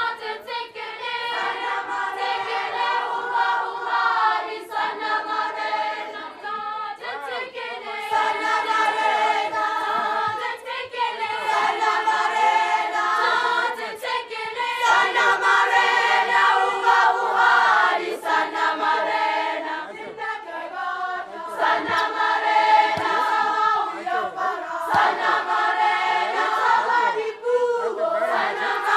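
Choir of young people singing, many voices together in long held phrases with short breaks between.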